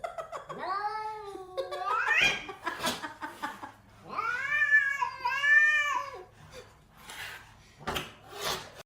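Domestic cat yowling in two long, drawn-out calls. The first call rises sharply in pitch at its end and the second wavers up and down. A few sharp knocks follow near the end.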